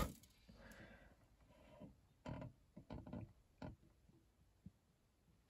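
Near silence: room tone with three faint short clicks.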